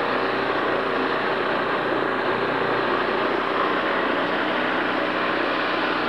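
Small gasoline engine of a snow-clearing machine running steadily up close.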